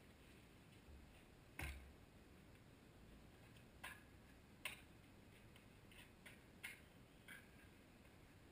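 Near silence broken by a few faint, irregular clicks and ticks.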